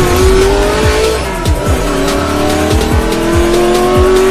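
Race car engine sound effect revving up, its pitch climbing, falling away about a second in as at a gear change, then climbing again, mixed with music and repeated low bass hits.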